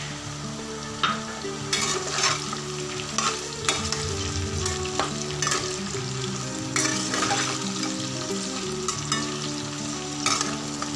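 Potato and onion chunks sizzling in hot oil in a kadhai, with a metal spatula scraping the pan and turning them every second or so.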